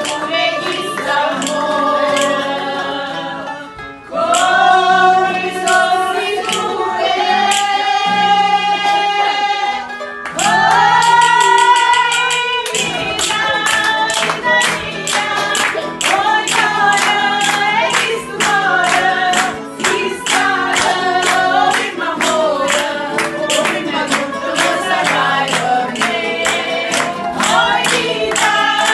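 A small group, women's voices leading, sings a folk song to mandolin and acoustic guitar, with hand claps keeping a steady beat.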